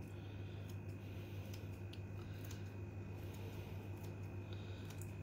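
Kitchen scissors snipping cooked bacon into small pieces: several faint snips and clicks over a steady low hum.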